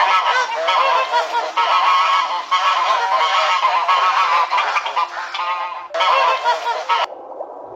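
A flock of geese honking, many overlapping calls at once. The honking breaks off briefly just before the end, resumes, then cuts off suddenly.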